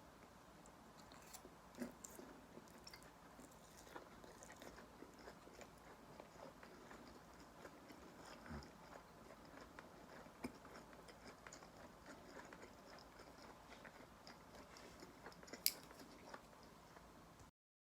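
Faint chewing and crunching of crisp-fried karaage chicken, with scattered small crunches and a sharp click near the end.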